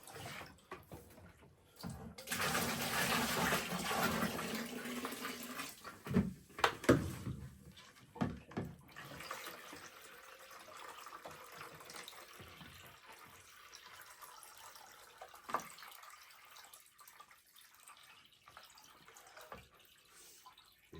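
Water poured into an LG top-loading washing machine's tub for about three seconds, rinsing out the drum, followed by a few sharp knocks and then a quieter steady sound of water.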